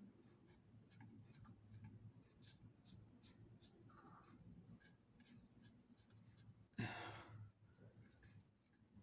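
Near silence: faint room tone with a few soft clicks and a short hiss about seven seconds in.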